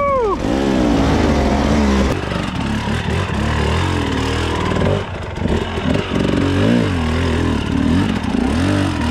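Dirt bike engines revved in repeated short bursts, the pitch rising and falling with each throttle blip, as the bikes are worked up a steep, loose climb.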